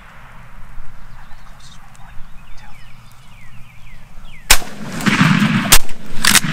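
Shotgun blasts: a sudden loud shot about four and a half seconds in, then another shot about a second later, as two turkey hunters fire on gobblers together. Before the shots there are only faint bird calls.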